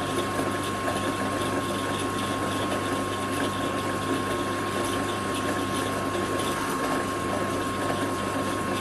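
Drill press running at slow speed, drilling a small hole in a metal part: a steady motor hum with a thin constant whine.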